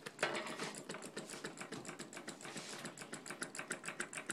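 Homemade cookie-can Stirling engine with a fan blade in place of its flywheel, running on leftover heat after being taken off the flame, with a fast, even ticking of about seven or eight ticks a second. A knock with a short ring comes just after the start.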